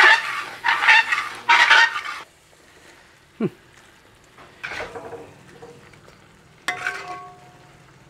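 A spoon stirring and scraping quail pieces through thick roasted-spice masala gravy in a cooking pan: three loud scraping strokes in the first two seconds, then quieter stirring with a couple of shorter strokes.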